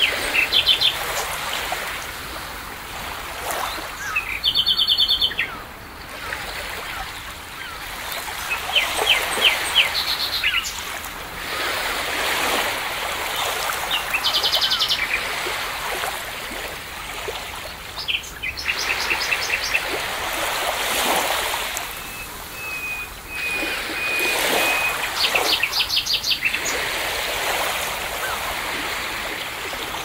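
Songbirds singing short, fast trilled phrases every few seconds over the wash of waves that swells and ebbs.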